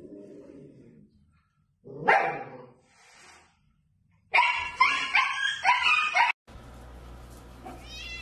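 Husky puppy barking: one sharp bark about two seconds in, then a quick run of high, bending yelps and barks for about two seconds.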